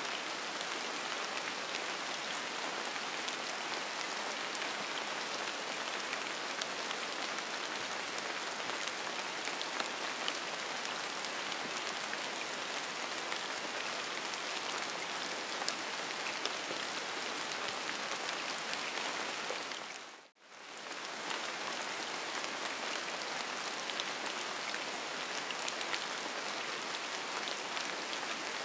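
Steady rain: a dense, even hiss of falling drops with fine ticks of single drops. About two-thirds of the way through it briefly fades out almost to silence and swells straight back in.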